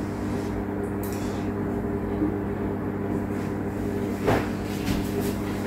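Steady low electrical hum with even overtones, and a couple of faint short sounds near the end.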